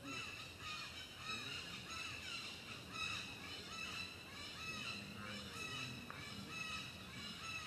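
A run of short animal calls, a few a second, each rising and then falling in pitch.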